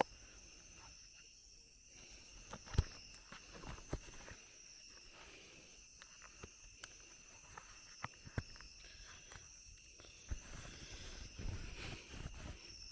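Forest insects droning steadily at two high pitches, with scattered knocks and rustling from movement close by, the sharpest knock about three seconds in.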